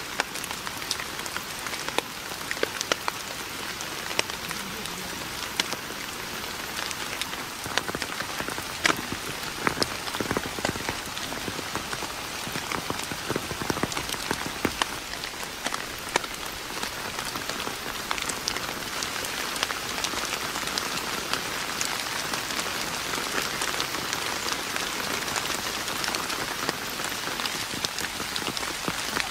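Steady rain falling on a tent: a constant hiss with many sharp taps of single heavy drops, growing a little heavier in the latter part.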